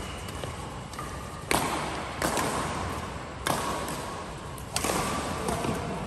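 Badminton rackets striking a shuttlecock during a doubles rally: a series of sharp hits about a second apart, each echoing briefly in a large hall.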